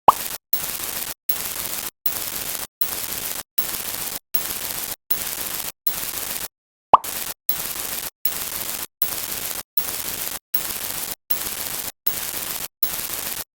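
Static hiss in short, regular bursts, each cut off by a brief silent gap, a little over one a second, with a sharp falling plop right at the start and another about seven seconds in.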